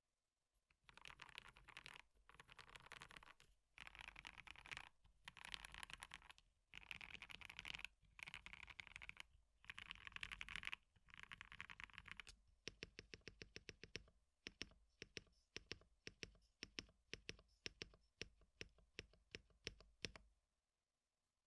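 Typing on a KBD67 Lite mechanical keyboard fitted with Gateron Ink Black V2 linear switches, with case foam and car foam inside. Fast bursts of typing for about the first twelve seconds, then slower, separate keystrokes several a second, stopping near the end.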